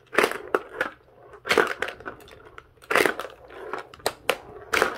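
Plastic Hungry Hungry Hippos game being played: hippo levers pressed so the heads snap forward, making a series of sharp plastic clacks, about six at irregular intervals.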